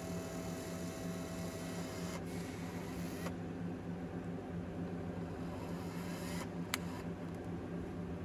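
A steady low mechanical hum with background noise, a faint high tone that stops about two seconds in, and a single sharp click near the end.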